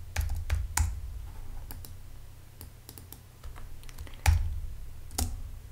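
Computer keyboard and mouse clicks: sparse single clicks with pauses between them, the loudest a little after four seconds in.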